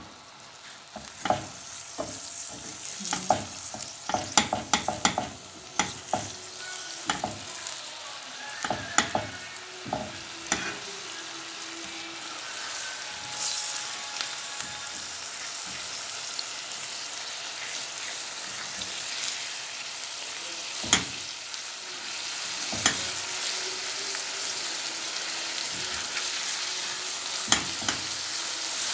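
Minced beef and onions sizzling in oil in a stainless steel frying pan while being stirred with a spatula, with many quick taps and scrapes of the spatula on the pan in the first ten seconds or so and only a few after that. The sizzle is steady and gets louder about two-thirds of the way through.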